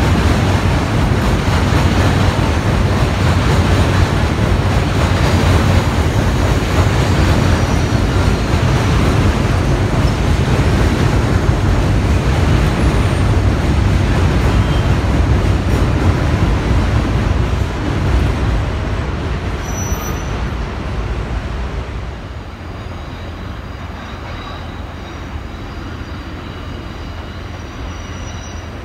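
A New York City subway train, an R68, pulling out of an elevated station: steady, loud rumbling of wheels on the steel structure. About two-thirds of the way through, the rumble dies down over a few seconds to a lower, steady hum.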